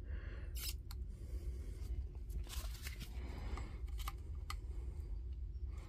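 Small sharp clicks and scrapes of tools and metal terminal parts being handled on a battery pack during soldering work, over a low steady hum.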